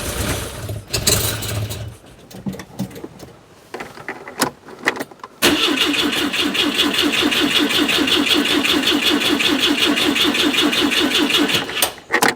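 Citroen GSA's air-cooled flat-four engine running briefly and cutting out about two seconds in. After a pause, the starter motor cranks it over in a fast, even rhythm for about six seconds and stops suddenly without the engine catching.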